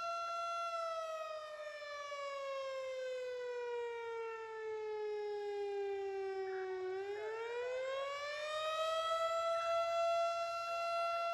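Fire siren wailing, activated to call out the fire company: a steady tone that slowly falls in pitch for about six seconds, then rises back within a couple of seconds to the steady tone.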